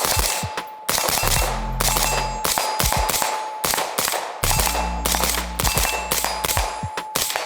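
Suppressed 5.56 AR-15 rifle (PSA Sabre with a Dead Air Sierra5 suppressor) firing semi-automatic in a steady string, about two to three shots a second.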